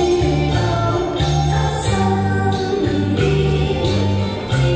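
A woman singing an old Chinese pop song into a hand-held microphone over a backing track, whose bass line steps from note to note under her voice.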